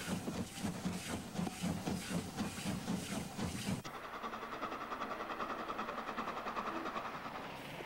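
Wood-burning 4-4-0 steam locomotive working along, its exhaust chuffing in a regular beat with hissing steam. About four seconds in, the sound changes abruptly to a steadier, thinner-sounding running train from an old film soundtrack.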